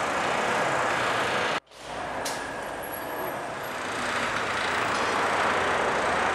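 Steady street traffic noise, a constant rush of passing vehicles. It cuts out abruptly about one and a half seconds in, returns, and grows a little louder near the end.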